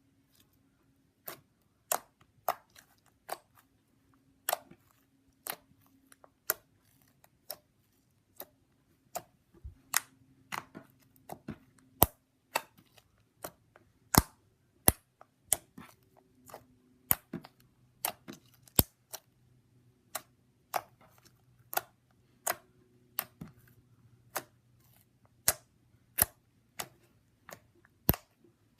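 Glossy, slightly firm slime being poked, squeezed and stretched by hand, giving sharp clicks and pops at irregular intervals, about one or two a second.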